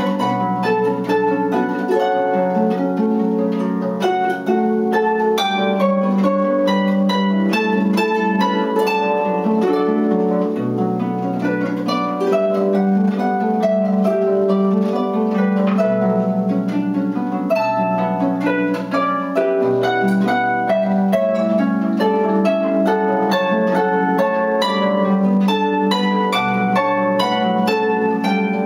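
Solo concert harp played with both hands: a melody over a steady flow of plucked notes, with low bass notes ringing underneath.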